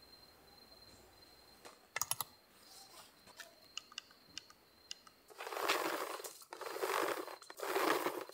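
Small plastic clicks and rattles of a camping lantern being handled and hung up, then three longer rustling noises of about a second each, the loudest part.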